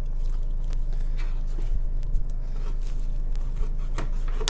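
Knife cutting and scraping through a raw chicken's throat section to free it from the carcass: faint scattered clicks and scrapes, the sharpest about four seconds in, over a steady low hum.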